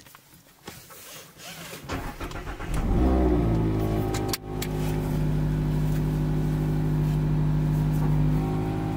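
Mazda MX-5 (ND Roadster) four-cylinder engine being started, heard from inside the cabin: a few clicks, then the engine catches about three seconds in with a quick rise in revs, and settles to a steady idle.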